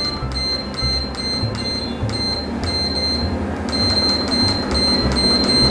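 PowerMax TD-N1 treadmill console beeping in a quick steady series, about three short high beeps a second, with a brief break a little past halfway, as the speed is stepped up toward its top setting of 12. The belt and motor run with a low hum underneath.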